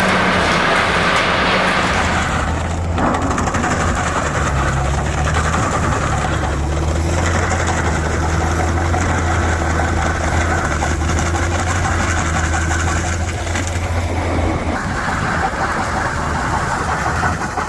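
An engine running steadily at a low, even pitch, its note shifting a couple of times.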